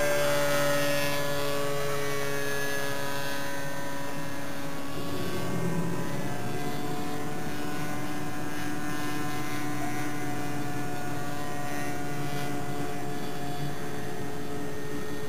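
SIG Kadet LT-40 radio-control trainer's model engine and propeller droning in flight. Its pitch falls slightly over the first few seconds, then holds steady.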